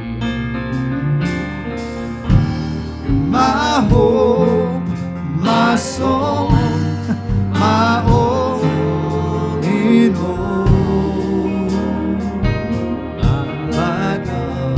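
Live worship band music with guitar, and a voice singing held, wavering notes in the middle.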